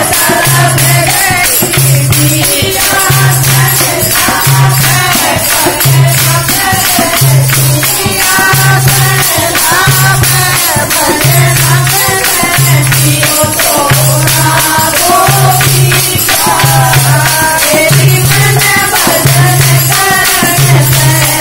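A group of women singing a Haryanvi folk devotional song, a lead voice into a microphone with the group joining in. Underneath are jingling hand percussion and a low beat about once a second.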